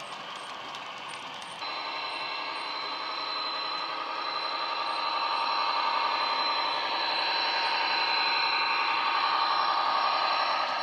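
Model German BR 218 diesel-hydraulic locomotive's LokSound sound file playing through the model's speaker: diesel engine running with a steady high whistle, growing louder as the loco approaches. Before a cut about a second and a half in, the wheels of passing model wagons click over the track.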